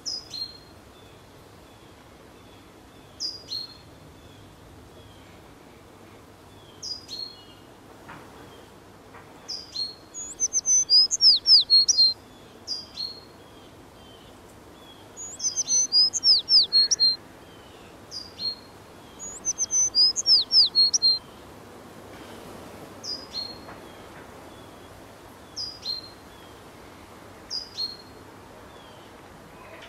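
Small birds chirping: a short high call repeated every few seconds, and three louder runs of quick falling whistled notes in the middle.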